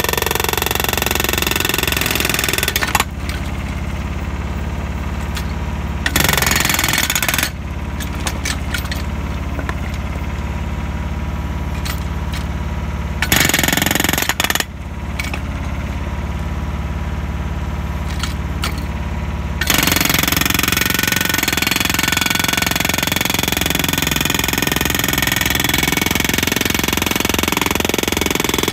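Hydraulic rock breaker on a Yanmar YB1200 mini excavator hammering into rock in rapid repeated blows, over the machine's running engine. The hammering turns sharper and louder in several stretches, including the last third, and duller in between.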